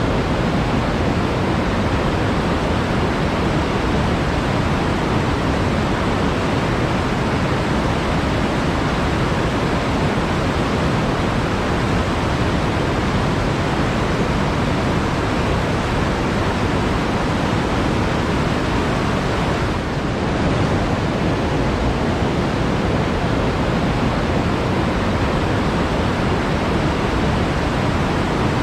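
Water flowing and rushing steadily, a dense even rush with no distinct splashes, with one brief dip in level about twenty seconds in.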